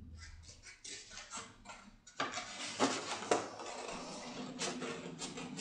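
Scissors snipping through a folded sheet of red drawing paper: a run of short cuts with paper rustling, busier from about two seconds in.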